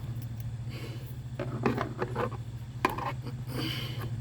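Light clicks and rubbing from a length of wire being bent and handled by hand, over a steady low hum.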